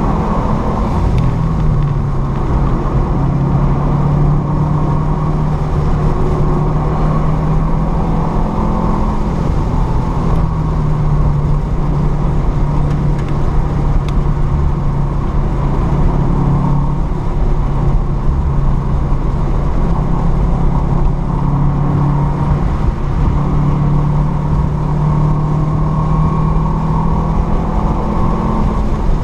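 Car engine pulling at about 4,000–5,000 rpm at speed, heard from inside the cabin over steady road and wind noise. The engine note holds fairly even with small dips and rises as the throttle is eased and reapplied.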